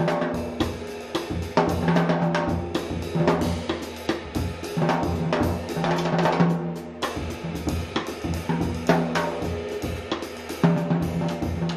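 Jazz drum kit played with wooden sticks: busy, irregular strokes on the snare drum with cymbals and bass drum, over sustained low notes.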